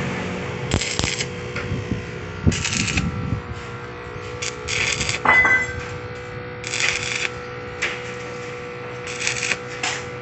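Stick-welding arc from a small inverter welder tack-welding a steel insulator bracket onto a pipe: about five short crackling bursts, each about half a second, with a steady faint hum underneath.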